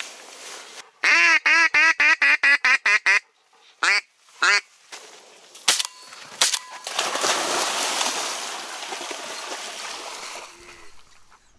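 Duck quacking: a rapid run of about ten quick quacks, then two more single quacks. Later comes a couple of sharp clicks and a longer stretch of rushing noise.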